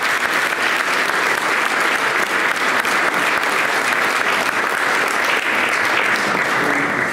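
Audience applauding: dense, steady clapping from a roomful of people that thins out near the end.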